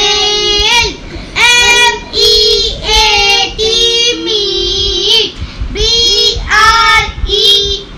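Young boys reciting in a high, sing-song chant, drawing out each syllable on a steady pitch as they give their spelling answers.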